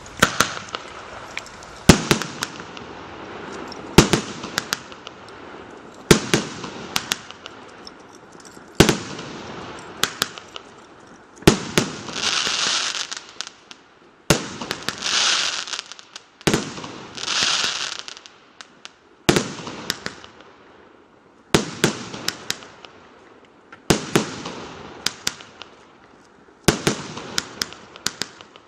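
A 49-shot consumer firework cake firing. Sharp reports come roughly every two seconds, each followed by a trail of crackling, and a few longer, brighter bursts of crackle and hiss fall near the middle.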